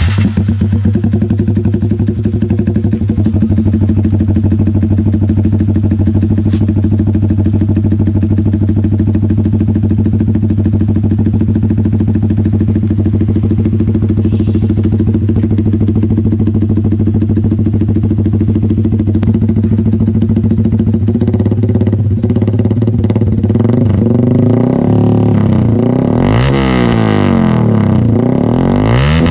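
Yamaha Sniper 150's single-cylinder four-stroke engine running through an SC Project slip-on exhaust, idling steadily. In the last several seconds it is revved up and down repeatedly.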